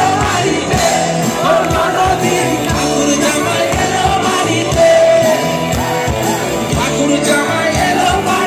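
Live folk-rock band playing loudly, with electric guitars, bass and a drum beat under a singing voice.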